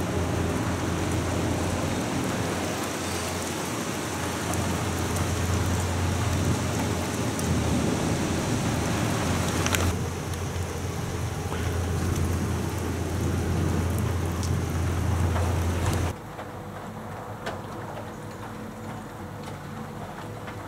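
Steady heavy rain during a thunderstorm, with a low rumble of thunder underneath. About sixteen seconds in the sound drops suddenly to quieter rain.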